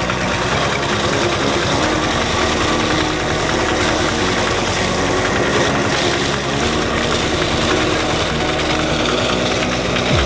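Diesel engine driving an irrigation water pump, running steadily with a rapid, even firing beat.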